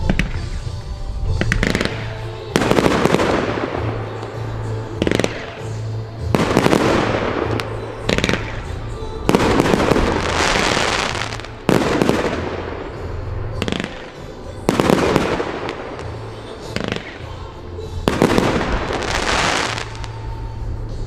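Aerial fireworks going off in a run of loud bangs, each trailing off in a crackling hiss, roughly one every one to three seconds.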